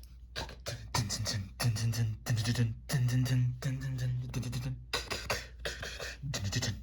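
A fast, dense run of sharp hits and thuds mixed with short low pitched vocal sounds, like a scuffle or fight.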